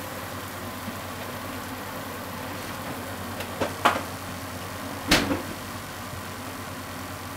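Cookware being handled: two sharp clicks a little before halfway and a louder knock about five seconds in, over a steady low hiss.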